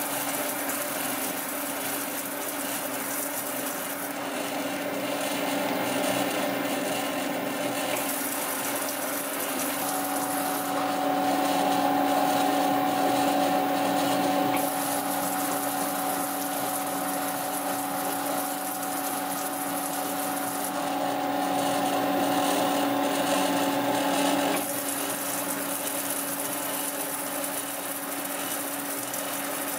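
Metallographic grinding-polishing machine running wet: the platen spins silicon-carbide paper (#2400 grit) under a sample holder with water flowing, giving a steady motor hum and wet grinding hiss. A higher whine comes in and the sound grows louder for a stretch in the middle, then eases back.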